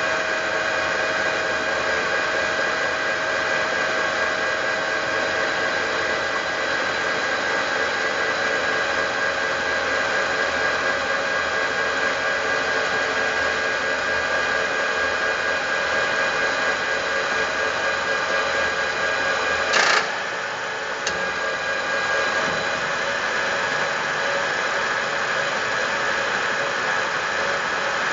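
Milling machine running steadily, its motor and drive giving a constant whine with several steady tones over a noisy hum. About twenty seconds in there is a sharp clack, and the machine sounds slightly quieter for a couple of seconds before settling back to the same steady running.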